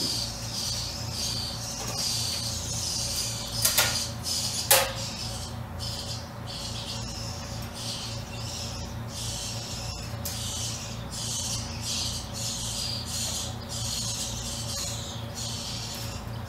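Small birds chirping repeatedly in quick, irregular runs over a steady low electrical hum, with two sharp clicks about four seconds in.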